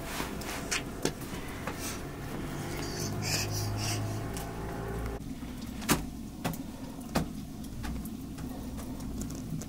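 Wood fire burning under a bread griddle and in a small stove: a steady low rumble with a few sharp crackling pops from the wood, the loudest about six seconds in.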